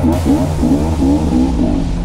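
Dirt bike engine running under the rider, its revs rising and falling quickly and repeatedly as the throttle is worked over a rough gravel track, over a steady low rumble.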